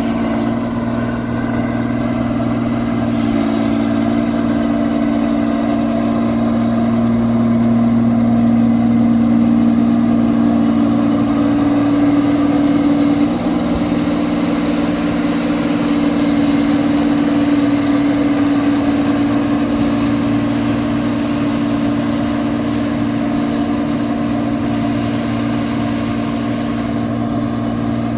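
Rice combine harvester's engine running loud and steady, a continuous drone whose pitch shifts slightly a few seconds in and again around the middle.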